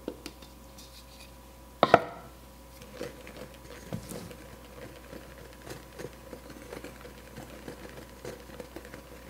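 Whisk stirring dry flour in a glass mixing bowl: a run of soft scratching and light ticks as the whisk brushes through the flour and touches the glass. A single sharp knock with a short ring about two seconds in.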